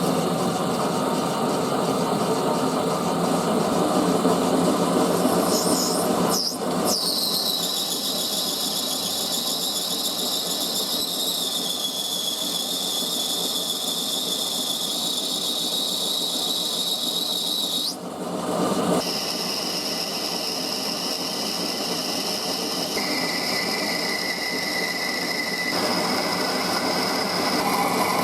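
Metal lathe running while turning solid brass bar stock, with a high, steady squeal from the cutting tool through the middle; the sound changes abruptly about six seconds and eighteen seconds in.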